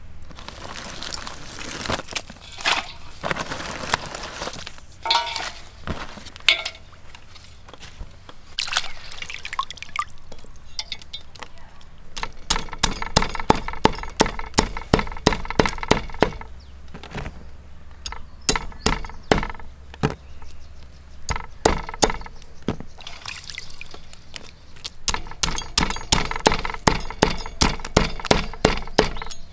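Hands-on food preparation: water splashing and pouring with clinks, then runs of quick, even chopping strikes about halfway through and again near the end.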